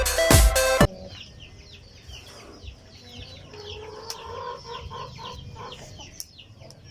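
Electronic dance music with a steady beat cuts off about a second in, leaving chickens clucking and cheeping faintly, with a few light knocks.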